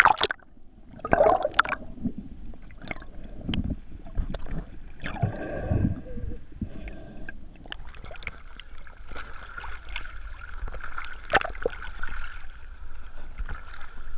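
Sea water sloshing and gurgling against a GoPro's waterproof housing as it bobs at the surface, dipping in and out of the waves, with irregular splashes and small taps.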